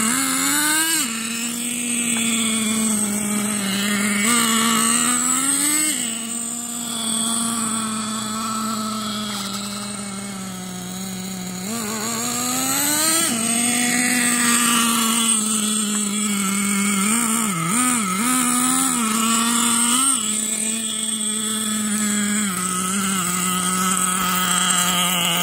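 Radio-controlled truck's motor running with a steady buzzing tone that rises and falls in pitch several times as the throttle is worked.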